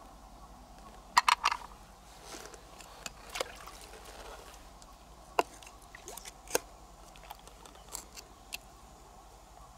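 Wet squelches and clicks from hands working the soft flesh of an opened pearl mussel, with a quick cluster of sharp smacks a little over a second in and scattered single clicks after.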